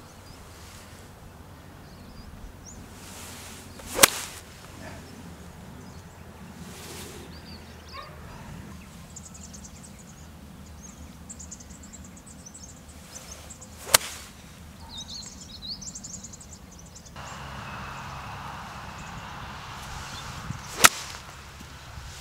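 Three golf shots with an iron club, each a sharp click of the clubface striking the ball, the second about ten seconds after the first and the third about seven seconds later.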